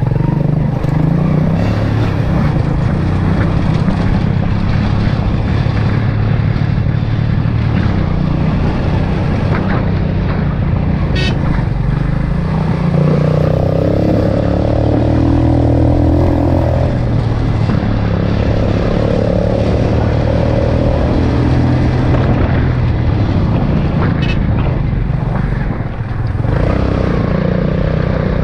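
Yamaha motorcycle engine running under load up a rough gravel track, its note rising and falling with the throttle.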